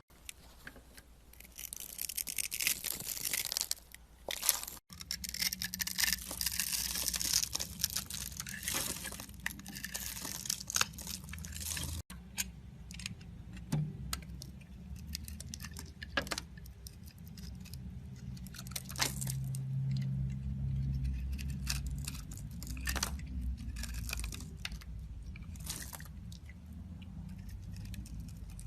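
A blade carving a bar of soap: crisp scraping and crunching strokes with many sharp clicks, densest in the first dozen seconds.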